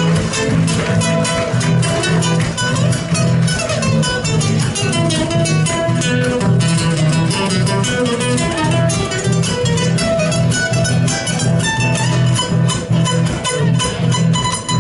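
Instrumental introduction of a Latin American folk song: guitars plucking quick runs of notes over an evenly pulsing bass line, with no singing yet.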